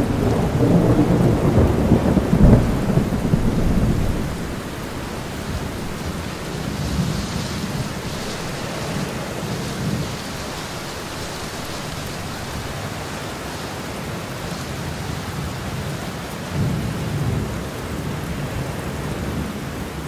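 Thunderstorm: steady rain with thunder rumbling, loudest over the first few seconds, and fainter rumbles again about halfway through and near the end.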